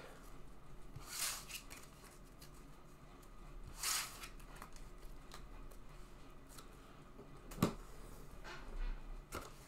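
Trading cards being handled on a padded table: a few soft swishes as cards are picked up and gathered, then a light tap about three-quarters of the way through as a small box of cards is set down.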